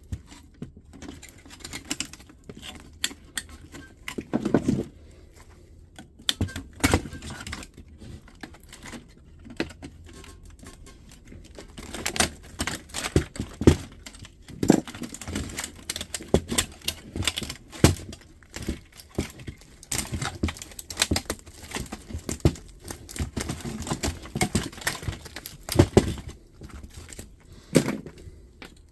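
Irregular clicks, knocks and rattles of plastic and metal parts being handled as a fax machine is taken apart for scrap.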